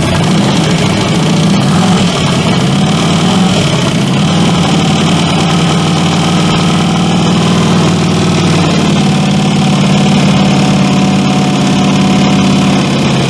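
Freshly swapped 5.3 L GM V8 in a Chevy S10 idling steadily after its first start, its idle shifting slightly a few seconds in and again past halfway. The engine has a lifter tick, which the owner puts down to lifters that were not soaked before install.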